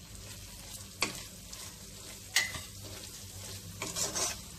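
A spatula stirring and scraping through fenugreek-leaf masala frying in oil in a pan, working in just-added chilli powder and garam masala, with a light sizzle under it. Two sharp scrapes about a second and two and a half seconds in, then a quick run of stirring strokes near the end.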